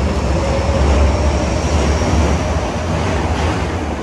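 Osaka Metro Midosuji Line subway train pulling out of an underground station: a heavy rumble with a faint motor whine that rises a little in pitch, growing quieter toward the end as the train leaves.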